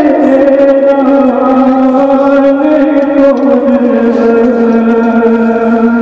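A man's voice chanting a Muharram mourning elegy (noha) in long, drawn-out held notes that slowly slide down in pitch.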